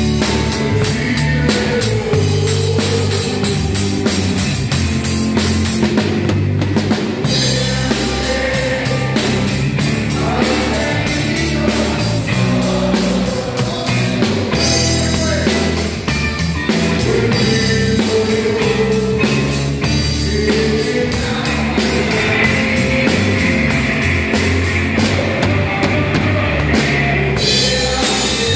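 Live rock-style Catholic praise band playing: drum kit keeping a steady beat under guitar, with a lead singer's voice over the top.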